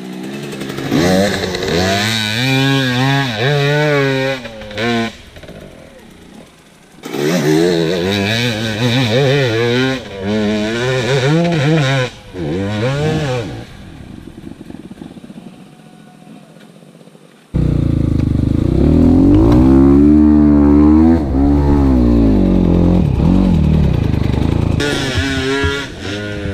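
Off-road motorcycle engine revving in repeated throttle bursts, its pitch rising and falling as it climbs a steep slope. It drops back in two lulls, and from about two-thirds of the way in it comes in suddenly much louder and close.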